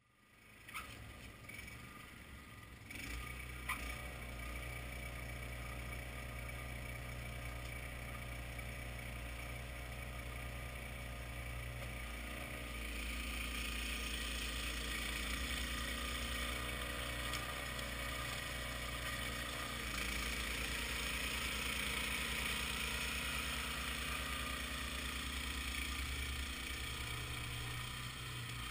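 Honda HS1132 track-drive snowblower's engine running steadily. About halfway through, the hiss of snow blasting from the chute joins in and stays louder.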